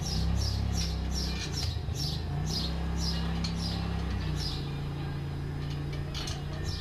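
A bird repeating short, high, falling chirps, about two to three a second, over a low steady drone that shifts pitch a few times.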